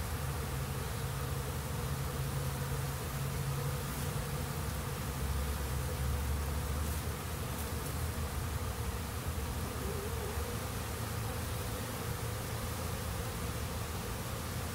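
Many honey bees flying in and out of a busy hive entrance, making a steady, continuous buzzing drone.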